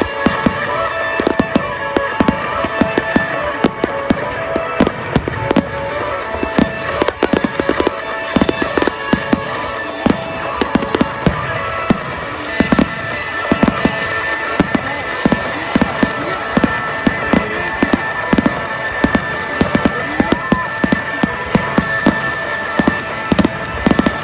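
Fireworks display: a rapid, continuous barrage of sharp bangs and crackles, several a second, with music playing underneath.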